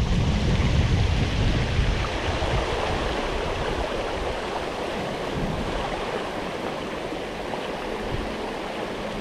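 River water rushing steadily over a shallow riffle, with wind buffeting the microphone that dies away in the first couple of seconds.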